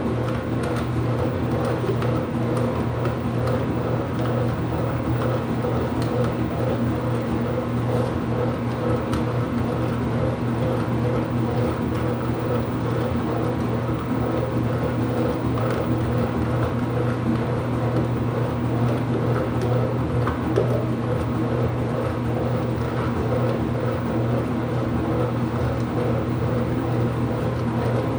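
IPSO washing machine running mid-cycle: a steady, unchanging machine hum with a low drone.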